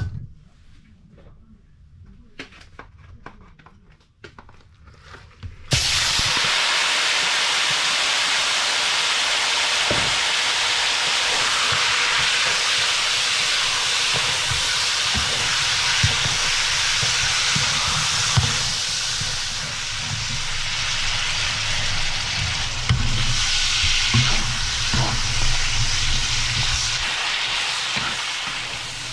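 Pieces of meat going into hot oil in a wok, setting off a sudden loud, steady sizzle about six seconds in, with a wooden spatula stirring and scraping through the frying. A few faint clicks come before the sizzle starts.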